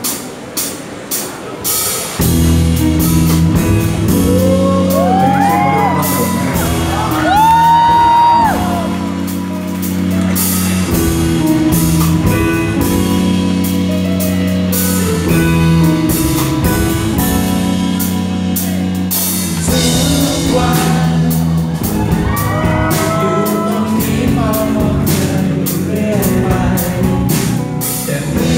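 Live band music: acoustic and electric guitars with singing. A few separate guitar strokes open it, and the full band comes in about two seconds in.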